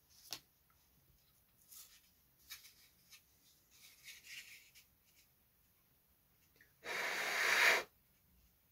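Light ticks and rustles of small balsa-wood pieces being handled, then about seven seconds in a loud breath of just under a second that grows louder before cutting off.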